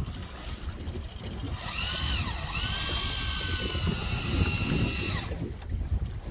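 Electric fishing reel motor winding in line on a deep drop: a high motor whine starts up about one and a half seconds in, drops out briefly and starts again, then runs steadily for about three seconds before cutting off.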